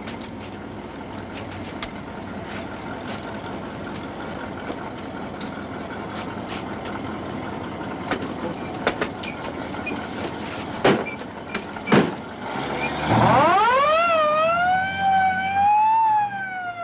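Ambulance siren winding up from low pitch into a rising and falling wail, after two loud bangs. Before that, a steady background hum with scattered small clicks.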